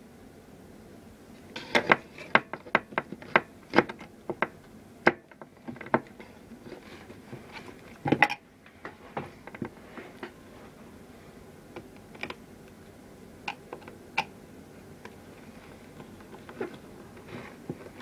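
Irregular metallic clicks and clinks of an adjustable wrench and a Phillips screwdriver working the nuts and kingpin bolts of skateboard trucks. A quick run of clinks comes a couple of seconds in, with one louder knock about eight seconds in, then scattered ticks.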